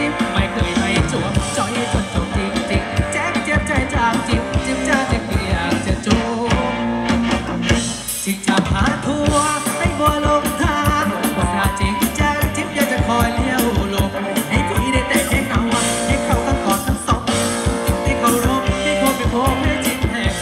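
Live Thai ramwong band music played through a PA: a steady drumbeat, guitar and a singer. The band stops for a brief moment about eight seconds in.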